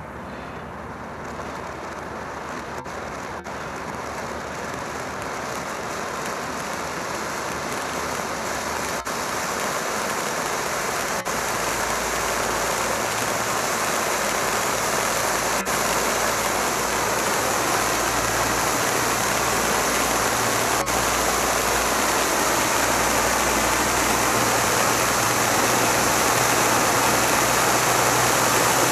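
Black Cat Silver Rain conic fountain firework burning, a steady hiss of spraying sparks that grows gradually louder as the fountain builds.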